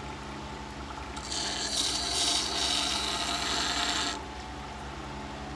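Scissor blade in a jig ground against the turning stone of a WEN wet grinder: a scraping grind starts about a second in and stops about four seconds in, over the steady hum of the grinder's motor. It is a short test pass to check the bevel angle.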